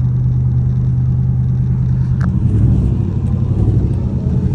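Cammed 5.7 Hemi V8 with long-tube headers running under way, heard from inside the car's cabin. The note is steady at first, then turns lumpier and lower about two seconds in, with a click at that point. The owner says the car has a bad exhaust leak.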